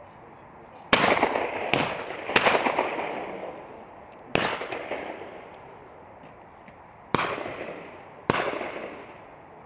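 Six shotgun shots fired at clay targets, each trailing off in a long echo: three in quick succession in the first couple of seconds, one alone a couple of seconds later, and a pair about a second apart near the end.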